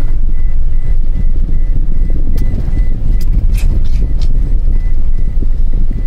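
Vehicle driving on a dirt road, heard from inside the cabin: a loud, steady low rumble of tyres and engine, with a few short clicks or rattles around the middle.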